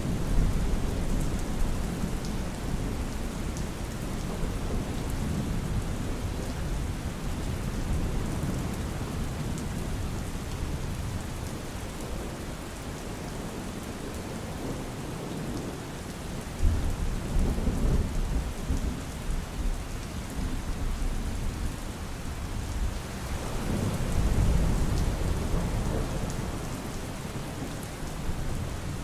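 Steady heavy rain with rolling thunder: a deep rumble breaks in suddenly a little past halfway, and another swells up and fades near the end.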